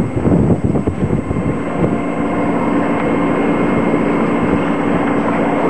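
Wind buffeting the microphone and waves rushing past the hull, over the steady drone of a sailboat's diesel engine motoring into a head sea. The wind gusts unevenly for the first second or so, then settles.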